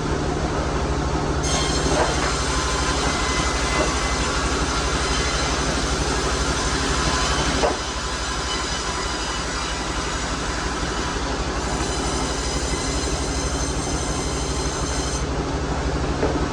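Sawmill saw running with a steady machine drone, its blade whining high while it cuts through an Albasia log from about a second and a half in until near the end.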